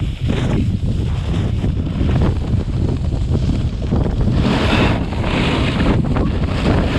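Wind buffeting an action camera's microphone during a ski run downhill, with the hiss of skis sliding on groomed snow. The hiss swells for about a second, about four and a half seconds in, as the skis scrape through a turn.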